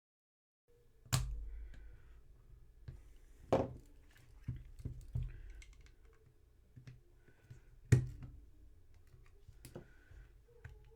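Sharp clicks and taps of a small hand tool against the old headlight switch unit as its parts are loosened; three loud ones about a second, three and a half seconds and eight seconds in, with lighter taps and scrapes between.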